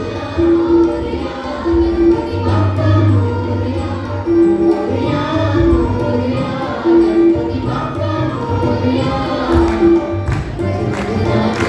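Group of singers in chorus, accompanied by an electronic keyboard and hand drums, with the keyboard repeating a short note pattern.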